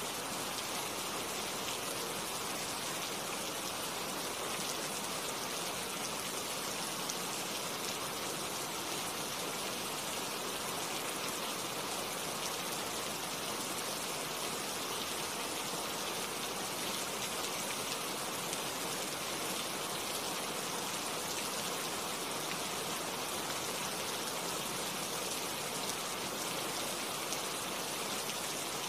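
Steady rain falling on tree leaves, a dense even patter of many drops without a break.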